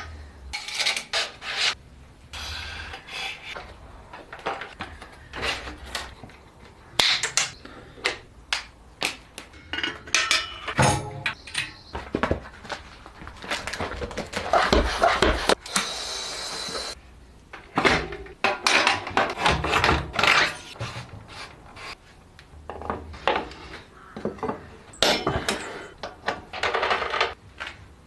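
Parts and tools clicking, clinking and rubbing as a new Scott mountain bike is assembled, in a quick irregular run of short knocks, with a longer rushing noise lasting about three seconds around the middle.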